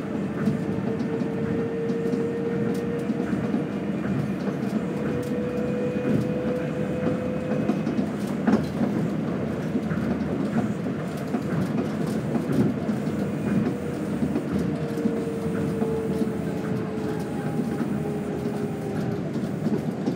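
Inside a Tokyo Monorail car running between stations: a steady rumble from the rubber-tyred running gear on the track beam, with a hum that swells and fades twice and a few knocks, one clear one near the middle.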